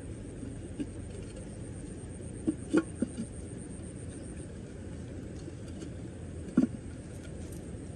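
Clay pot lid knocking against an earthenware cooking pot as it is handled over a wood fire: a quick cluster of three or four light knocks a few seconds in and a single louder knock near the end, over a steady low rumble.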